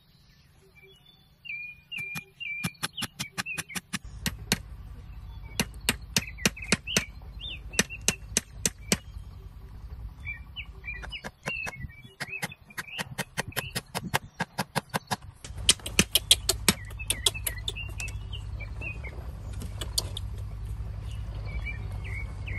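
Hammer driving nails into bamboo slats: runs of sharp taps, several strikes a second, with short pauses between runs. Birds chirp in the background.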